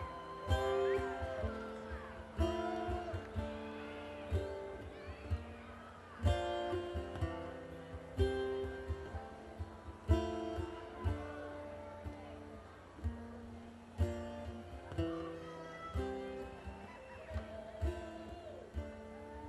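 Live band playing an instrumental passage: strummed acoustic guitar over held notes and a steady drum beat.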